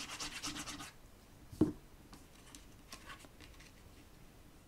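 Liquid glue bottle's applicator tip rubbed quickly back and forth over cardstock: rapid scratchy strokes that stop about a second in. A single sharp knock comes about half a second later, followed by faint light paper handling.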